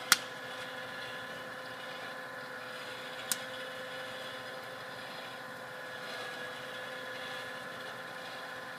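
Coffee beans popping in first crack: two sharp individual snaps, one right at the start and a fainter one about three seconds later, over the steady hum of the running roaster. First crack sounds like popcorn, with separate snaps rather than the dense crackle of second crack.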